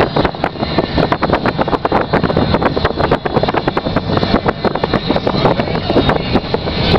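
Wind buffeting the microphone over the road and engine noise of a moving car, heard from inside the car.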